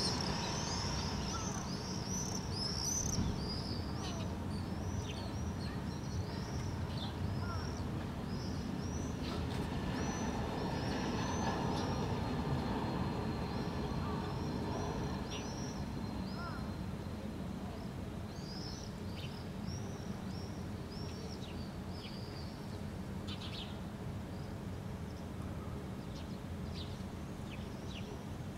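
Many short, high-pitched chirps from small birds, thickest in the opening seconds and again in the second half, over a steady low background rumble.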